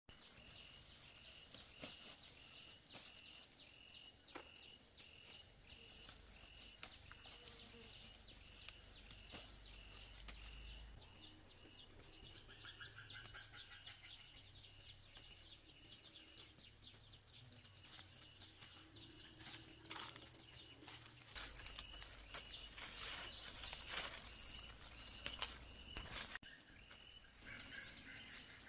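Faint outdoor ambience: a high chirp repeating evenly about twice a second, with scattered light clicks and rustles.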